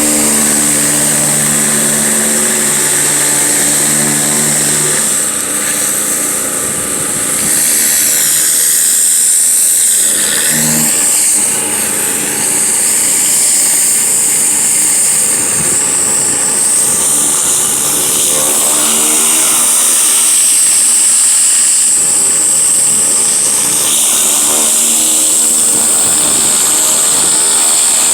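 Pressure washer running, a steady motor hum under the loud hiss of the water jet. The hiss wavers in pitch now and then.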